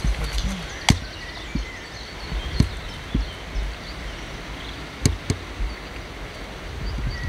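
Low rumble of wind on the microphone, with four sharp clicks of small fishing tackle being handled, the last two close together; birds chirp faintly.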